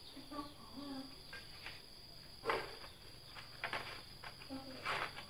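Small metal motorcycle engine parts clinking as they are handled and set into a parts tray: a few separate sharp clinks, the loudest about halfway through. A steady insect chirring runs underneath.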